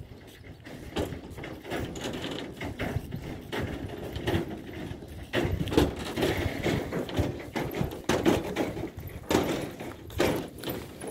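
Irregular footsteps and knocking handling noise on a hand-held camera's microphone while it is carried along the bridge.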